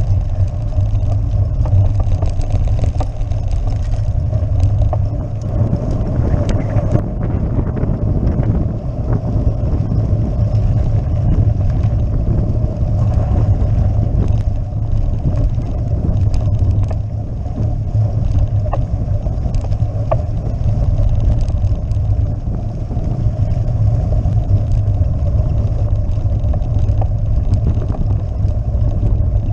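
Bicycle riding over cobblestones, heard through a bike-mounted camera: a loud, dense, steady rumble of the camera and bike shaking on the pavé, with frequent sharp knocks from the jolts.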